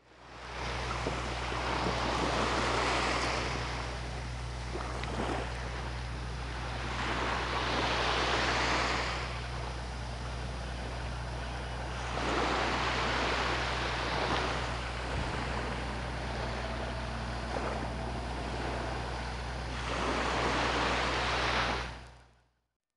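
Small waves washing onto a sandy beach, swelling and falling back four times, several seconds apart, over a steady low hum.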